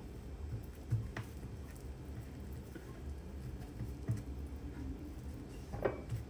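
Soft knocks and handling noise of hands working pastry on a kitchen countertop, with taps about a second in, about four seconds in, and a couple near the end, over a steady low hum.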